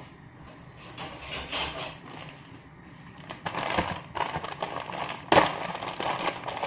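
Crinkling and clicking of plastic instant-noodle packaging being handled, busier in the second half, with a sharp knock about five and a half seconds in.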